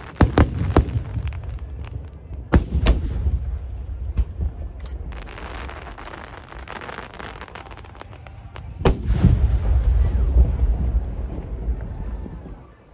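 Aerial fireworks shells bursting overhead: several sharp bangs in the first three seconds, a crackling hiss around the middle, then a run of deep, rolling booms from about nine seconds in.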